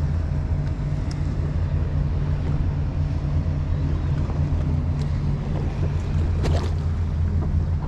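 Mercury outboard engine running at a low, steady idle, with wind on the microphone and water around the hull. A short burst of noise about six and a half seconds in.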